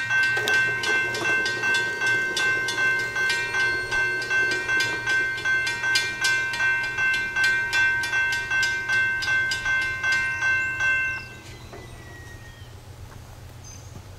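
Railroad crossing bell ringing, about two strikes a second, while the crossing gates lower; it cuts off suddenly about eleven seconds in, once the gates are down.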